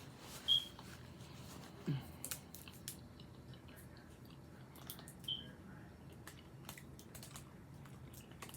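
Close-up mouth sounds of a person chewing tuna salad: wet clicks and smacks, with a brief low sound about two seconds in. Two short high pings, the first and loudest about half a second in, the other about five seconds later.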